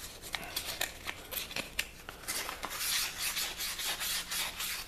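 Very fine sandpaper rubbed by hand in short, irregular strokes on the aluminium seal seat of a Yamaha PW80 crankcase, scrubbing off old seal glue. The strokes get louder about three seconds in.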